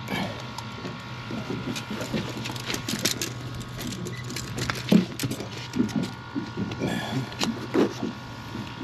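Handling noise from a retractable tape measure and the phone: irregular light clicks and knocks, over a steady low hum.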